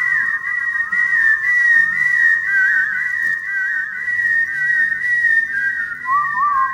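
Layered whistled melody lines, high and clear, warbling in rapid trills over a faint low accompaniment, with a lower whistled line coming in near the end.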